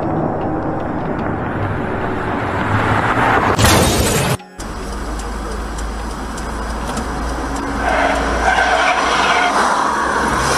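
Car and street noise: a rough rushing sound swells into a brief, very loud hiss about three and a half seconds in, then cuts off abruptly. A steady low engine rumble with traffic follows.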